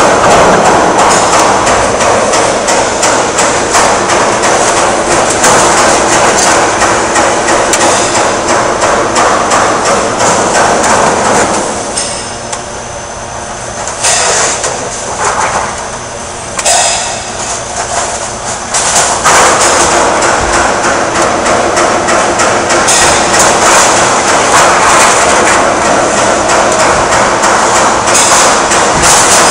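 Loud, rapid metallic clattering and banging in a sheet-metal fabrication shop, dense and continuous, easing off for several seconds in the middle before picking up again.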